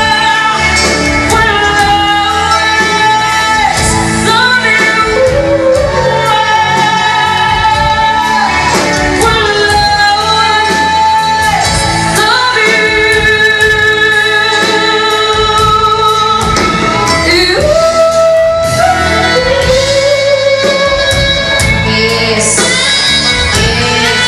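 Live amplified band: a woman sings long held notes with vibrato and slides between pitches, over electric guitars and drums.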